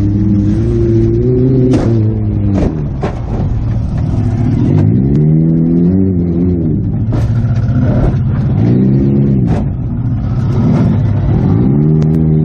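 Toyota Matrix's four-cylinder engine revving up and down over and over in the stripped derby car's cabin, with about half a dozen sharp bangs of collisions between the revs.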